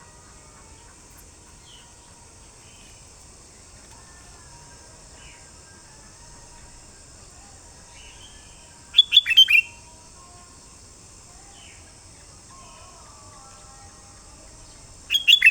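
Sooty-headed bulbul (kutilang) giving a short, loud phrase of several quick notes about nine seconds in and again near the end. Faint chirps of other birds and a steady high hiss fill the gaps.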